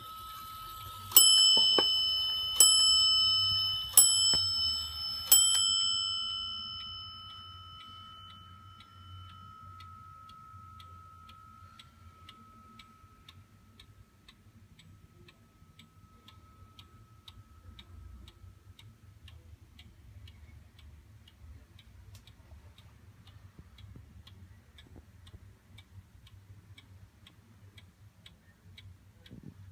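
Warmink 8-day weight-driven wall clock striking four times, about a second and a half apart, each stroke ringing on and slowly fading. After the strikes, the movement ticks steadily and faintly.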